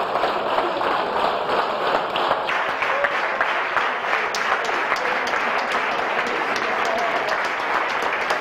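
Audience applauding steadily, with a few voices talking underneath.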